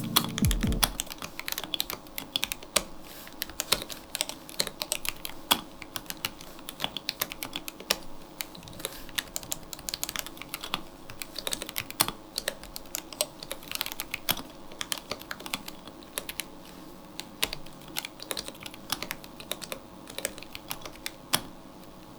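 Typing on a My Neighbour MYNK65 65% gasket-mount mechanical keyboard with an acrylic case, polycarbonate plate and PBT keycaps: a fast, irregular stream of keystroke clacks that stops about a second before the end.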